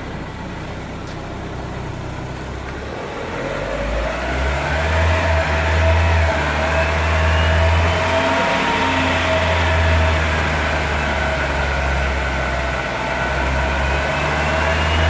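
Lada Granta's engine revving in gear through its automatic gearbox, spinning a jacked-up front wheel in the air to check whether the studded tyre wobbles or is out of balance. The engine and the whine rise in pitch from about three seconds in, ease off briefly near the end and rise again.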